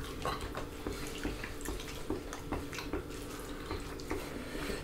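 Close-up eating sounds: wet chewing and mouth smacks with small clicks of fingers working food on plates, in a string of short crackles about twice a second, over a faint steady hum.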